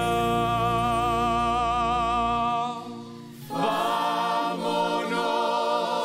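Background music: a choir singing long held notes with a slight vibrato. The sound fades about two and a half seconds in, and a new chord comes in a second later.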